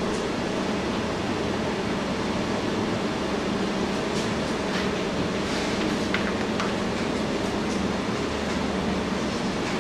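Steady background hiss and low hum with a few faint ticks about halfway through.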